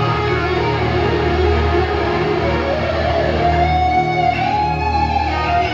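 Live rock band playing instrumentally: electric guitars over bass, drums and keyboards. A lead guitar holds and bends a high note in the second half.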